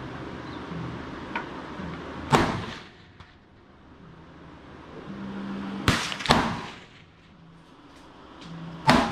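Rifle shots on a firing line: four sharp reports, each trailing off in a short echo. One comes about two seconds in, two close together about six seconds in, and one near the end.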